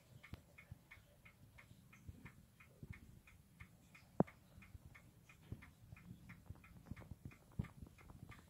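Faint, rapid, even ticking of a mechanical clock, about three to four ticks a second, with soft low knocks and one sharper tap about four seconds in.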